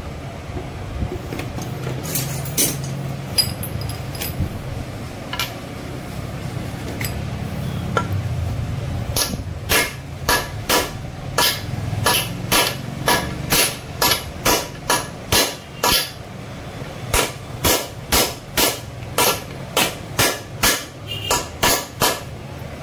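Hammer striking to drive a bearing into its seat in a Royal Enfield Bullet engine's crankcase half: a few scattered blows at first, then steady blows about two a second from about nine seconds in.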